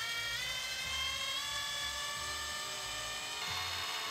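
Small electric screwdriver whining as it spins up and then runs steadily, driving a hex screw into an RC truck's chassis bumper mount; its pitch shifts slightly near the end.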